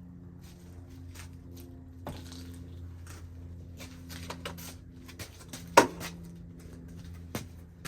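Scattered clicks and metal knocks from hands-on work fitting a truck door onto its hinges, with one sharp, loud knock a little past the middle, over a steady low hum.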